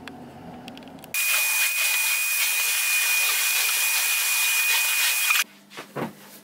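A small electric appliance running: a loud, even rush of air with one steady high whine, starting about a second in and cutting off abruptly some four seconds later.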